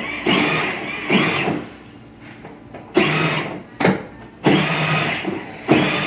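Electric motor and gearbox of a 12-volt Fisher-Price Power Wheels Corvette ride-on whining in short stop-start runs, about five in six seconds, each starting abruptly, as the car rolls over a hardwood floor.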